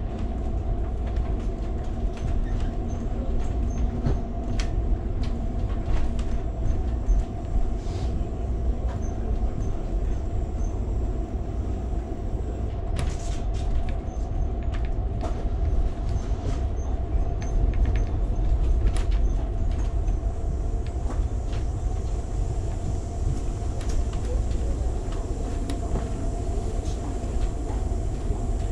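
Interior of an Amtrak Superliner passenger car rolling along the track: a steady low rumble from the wheels on the rails, with a constant hum and scattered clicks and rattles.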